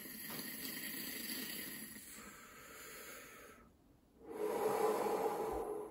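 A long breath drawn in through a Brunnmatt glass essential-oil inhaler, the air bubbling softly through the oil inside, then after a short pause a shorter, louder exhale.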